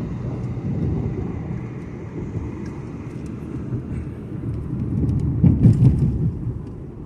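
Road noise of a moving car heard from inside the cabin: a steady low rumble of tyres and engine, swelling louder for a moment about five seconds in.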